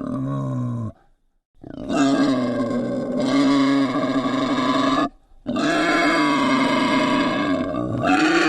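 Wild boar squealing: a call that ends just before a second in, then after a short silence two long, loud squeals of about three seconds each, with a brief break between them.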